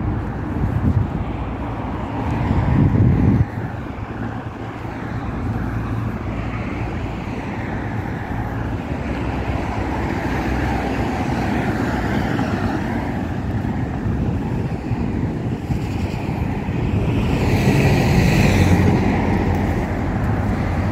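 City road traffic: cars and buses running past in a continuous hum of road noise, louder for a moment about three seconds in, where it cuts off sharply, and swelling again near the end.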